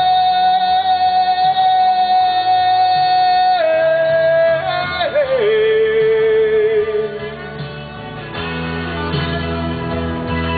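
Country band music: one long held note that steps down in pitch about four and five seconds in, over steady band backing with guitar.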